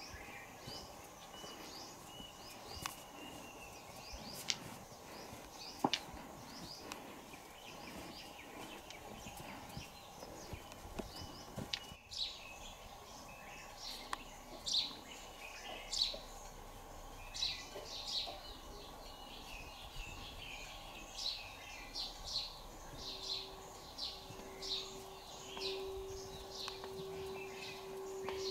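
Small birds chirping over a steady outdoor background, the short chirps coming faster and louder through the second half, about one or two a second. A few sharp clicks sound in the first few seconds, and a steady low hum joins near the end.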